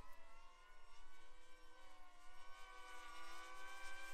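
FPV racing drone motors giving a steady whine, several pitches at once, drifting slowly as the throttle changes.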